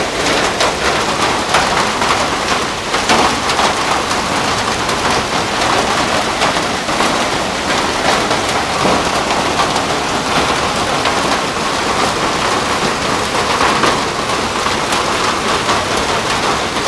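Hail and heavy rain pelting the street: a loud, steady patter made of countless small sharp ticks.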